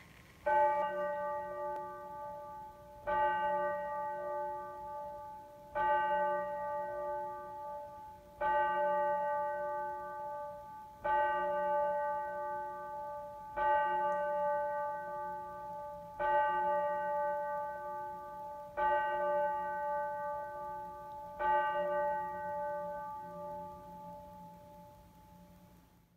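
A bell tolling slowly and evenly, nine strokes about two and a half seconds apart, each on the same note and ringing on until the next, the last dying away near the end.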